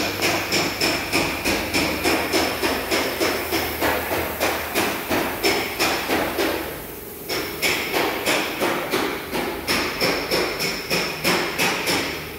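A steady rhythm of sharp metallic strikes with a ringing tone, about two or three a second, pausing briefly about seven seconds in.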